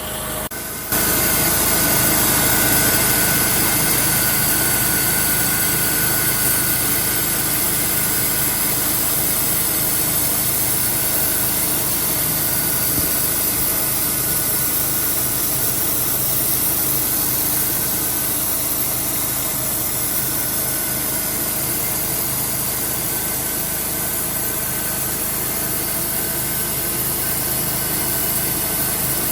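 A sawmill's engine running steadily. It comes in suddenly about a second in and holds an even note throughout.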